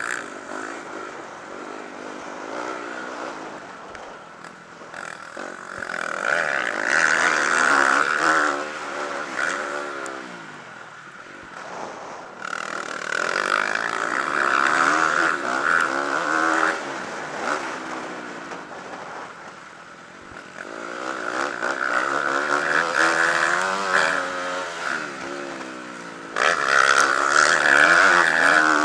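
Motocross dirt bike engine heard close up from the bike itself, revving up hard and easing off again in four big surges, its pitch rising and falling with the throttle.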